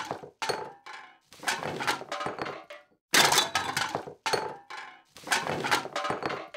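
A run of about seven sharp crash-like impact sound effects, roughly one a second, each dying away before the next; the loudest falls about three seconds in.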